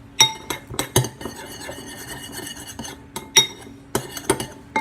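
A mixing utensil clinking against a bowl, with a run of sharp ringing clinks in the first second. This gives way to a stretch of scraping and stirring, then another quick series of clinks in the last two seconds as the slime and Tide activator are stirred together.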